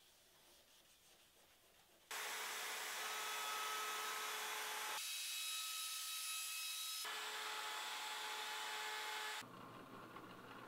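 Handheld wood router running and cutting a roundover profile along the edge of a cherry board, a steady whine over cutting noise that starts about two seconds in and changes abruptly a couple of times. Near the end it gives way to a quieter drill press boring a countersink.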